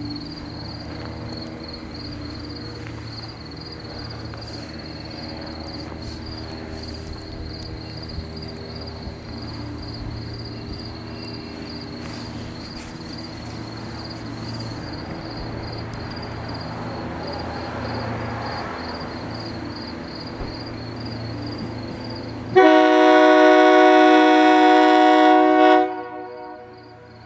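SEPTA Silverliner V electric commuter train hums steadily while stopped or creeping at the station. Near the end it gives one long blast of its Nathan K3LA three-chime air horn, about three seconds long and much the loudest sound, which cuts off sharply.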